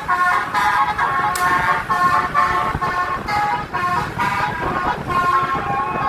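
Basuri telolet bus horn, a 36-note multi-tone horn, playing a melody as a quick, unbroken run of bright honking notes that change pitch every fraction of a second.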